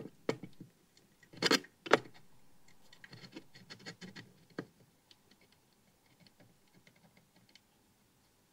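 Soldering a joint on a turret lug: small clicks, two louder sharp clatters about one and a half and two seconds in, then a run of fine crackling and ticking from the hot joint that thins out about halfway through.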